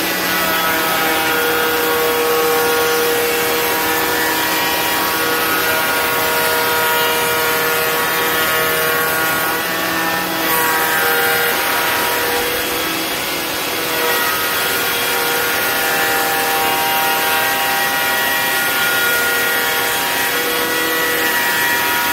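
Rockwell Delta half-inch spindle shaper running a router bit in an ER20 collet, cutting a profile into picture-frame molding as the board is fed past the cutter. A steady motor whine with cutting noise over it; the sound turns harsher for a few seconds about ten seconds in.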